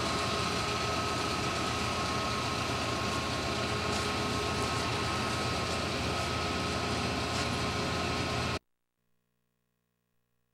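Steady hum of running machinery with a few constant tones over it. It cuts off suddenly about eight and a half seconds in.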